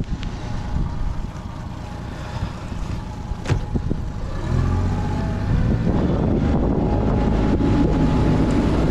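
Honda 30 hp four-stroke outboard motor running at trolling speed, then picking up revs with a rising pitch about four and a half seconds in and running on louder. A sharp knock comes just before, and wind rushes on the microphone.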